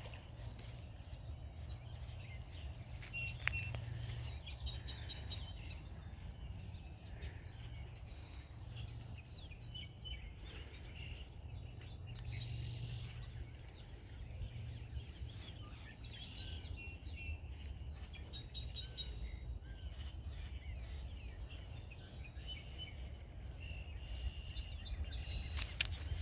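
Songbirds chirping and trilling, many short calls overlapping, over a low steady rumble.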